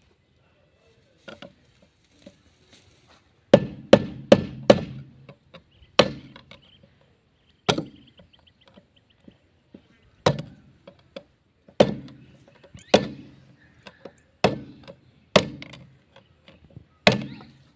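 Hand hammer striking a screwdriver used as a drift against the notched front wheel hub nut of a John Deere tractor, knocking the nut round to loosen it. About a dozen sharp blows, irregularly spaced, with a quick run of four about three and a half seconds in.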